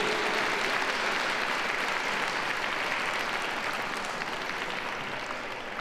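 Audience applauding, the clapping slowly fading away.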